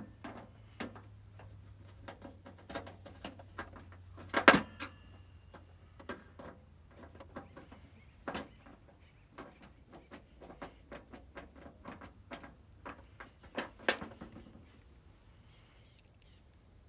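A screwdriver working screws in the black plastic underside of a Coleman camp grill/stove: irregular small clicks and scrapes, with a louder knock about four and a half seconds in and another near fourteen seconds.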